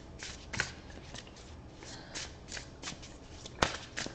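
Tarot deck being shuffled by hand: a run of short, soft card swishes, with one sharp click about three and a half seconds in.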